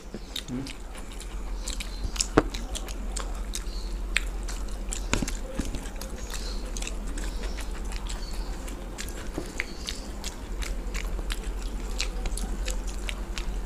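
Two people chewing and biting into fried chicken pakoda pieces, close to a table microphone, with many scattered wet clicks and smacks from mouths and fingers. A steady low hum runs underneath.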